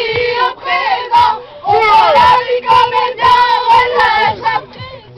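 A group of young people chanting loudly in unison, in short repeated phrases with brief gaps. A steady tone is held underneath much of the time.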